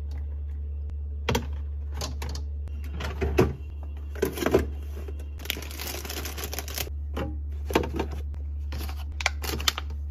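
Food containers and packaging being handled while a fridge is restocked: a series of clicks and knocks, with a crinkling, tearing rustle of plastic packaging about five and a half seconds in, over a steady low hum.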